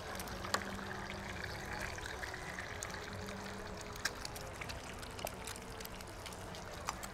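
Eggs frying in hot oil and butter in a cast iron skillet: a steady sizzle with a few sharp pops.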